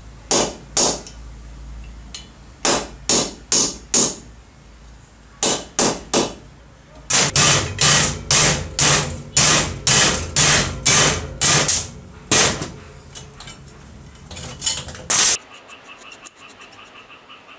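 Hammer blows on a rusty steel gear puller fitted to an old circular saw's housing, ringing metal-on-metal strikes driving the puller to free a stuck part. About twenty sharp blows come in uneven bursts, the longest run about two a second, and stop about fifteen seconds in.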